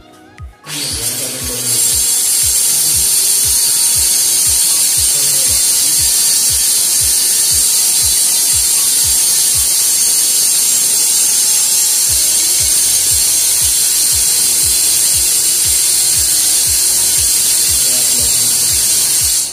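Loud, steady high-pitched hiss that comes in about a second in and cuts off abruptly, over background music with a steady thumping beat.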